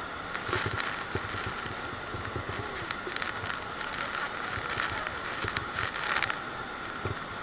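Steady rush of Niagara Falls and its spray up close, with wind buffeting the microphone in irregular low gusts.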